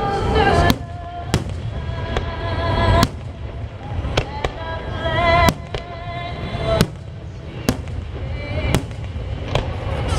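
Aerial fireworks bursting, with a sharp bang about every second and low booming between them, over music.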